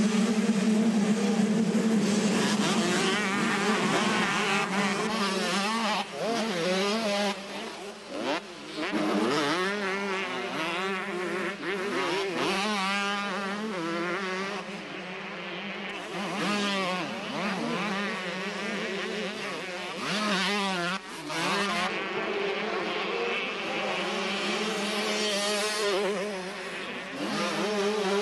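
A pack of 125cc two-stroke motocross bikes racing, the engines revving up and down through the gears with several pitches overlapping. It is loudest and steadiest for the first several seconds as the pack charges by, then thins to one or two bikes whose revs rise and fall.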